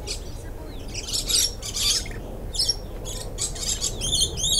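Lorikeets and other parrots calling in repeated harsh screeches, in several bouts, with a run of quicker, clearer chirps near the end.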